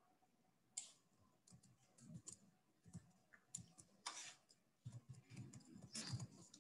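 Faint computer keyboard typing and mouse clicks: scattered soft clicks that get busier over the last couple of seconds as keys are typed.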